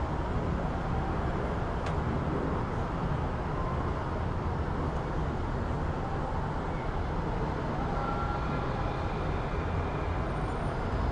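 City road traffic ambience: a continuous rumble of passing vehicles' engines and tyres, with a brief click about two seconds in.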